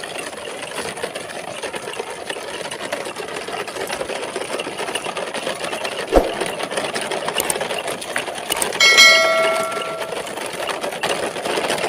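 Small electric motor of a toy vehicle whirring steadily, with a single knock about six seconds in and a steady pitched tone lasting about a second, starting about nine seconds in.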